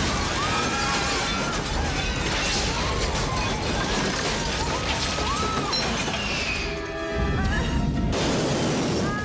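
Film sound mix of a jumbo jet crashing through a building: glass shattering and debris crashing over a dramatic orchestral score. The din dips briefly near the end, then comes back loud as the jet's engines take over.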